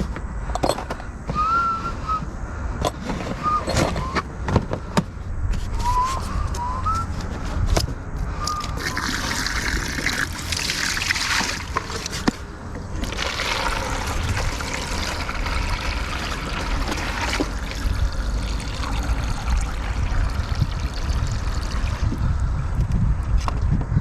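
Wind buffeting the microphone with a steady low rumble, swelling into a broad rushing gust through the middle. A few short chirps sound in the first several seconds.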